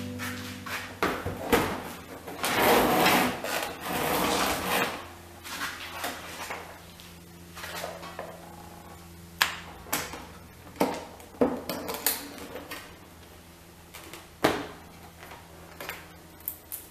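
Hands plugging an extension cord's connector into an electrical box and handling the box: rustling for the first few seconds, then a series of sharp clicks and knocks. A low steady hum comes in about five seconds in.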